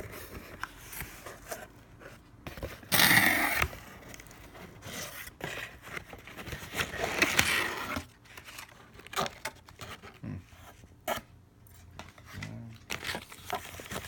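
A package being unpacked by hand: packaging scraping and rustling, loudest in a burst about three seconds in and again around seven seconds.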